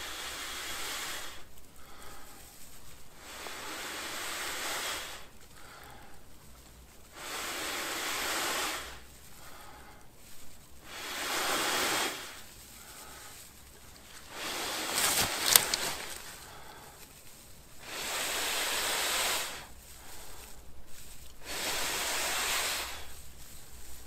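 Long, breathy blows, about seven of them, each a second or two and every three to four seconds, blowing into a smouldering tinder bundle to coax a flint-and-steel ember into flame. A few sharp crackles come about halfway through.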